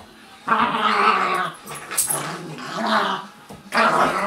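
Two dogs, a Labrador mix and a coonhound puppy, play-wrestling and growling in play, in about four rough bursts.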